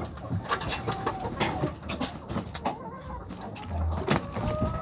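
Hens clucking close by, short broken calls, over scattered sharp taps and scratches with a couple of dull low thumps.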